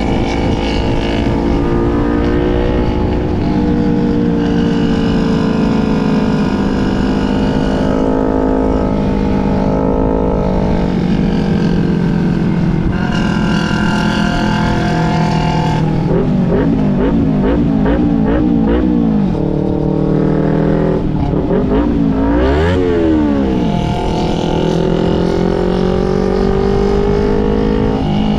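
250 cc sport motorcycle engines running while riding, their pitch rising and falling with throttle and gear changes, with a stretch of quick wavering revs around the middle.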